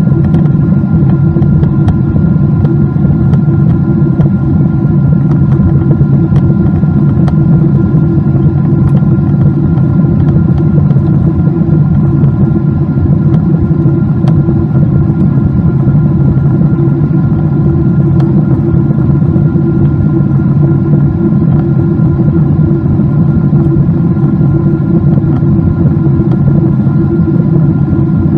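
Steady drone of a Boeing 777-200's twin turbofan engines heard inside the cabin by a window seat: a loud, unchanging low rumble with a few steady whining tones above it.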